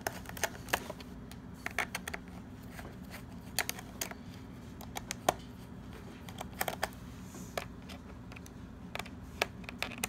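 Small Phillips screwdriver turning out the little screws of a MacBook Pro's aluminium case: scattered, irregular light clicks and ticks of the driver tip and screws against the metal, in small clusters with pauses between.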